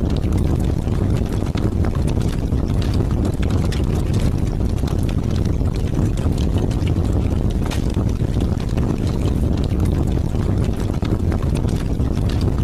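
Heavy rain falling in strong wind: a steady deep rush of wind with rain spattering in many small, quick ticks.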